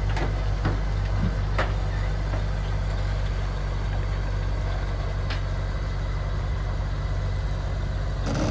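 Jeep 4.0-litre inline-six, still on its stock exhaust manifold, running at a low, steady idle as the lifted Comanche crawler creeps forward off a trailer, with a few light knocks.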